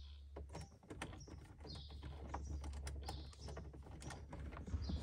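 Faint, irregular small clicks and taps of a small stubby screwdriver working a countersunk trim screw out of the side of a dash panel. Birds chirp in the background about once a second.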